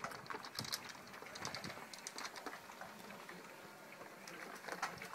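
Dogs eating dry food from feeders: irregular small clicks, rattles and crunches of kibble.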